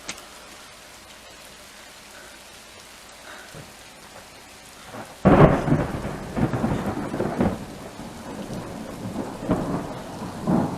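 Steady rain, then about five seconds in a sudden loud clap of thunder that goes on rumbling, with repeated swells in loudness.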